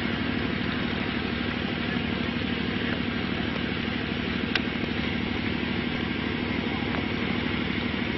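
A small engine running steadily at idle, with an even rough hum. About halfway through comes one sharp click, a golf club striking a ball.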